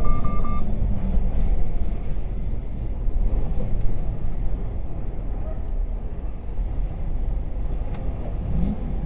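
Semi-truck cab and road noise, a steady low rumble as the truck slows hard, with rapid electronic beeping that stops about half a second in.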